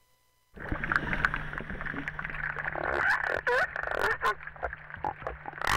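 Crabeater seal calling underwater: warbling calls that glide down and up in pitch, heard over water noise, a steady low hum and scattered clicks. These warbles are among the vocalizations unknown for crabeaters, which were thought to make only a simple grunt.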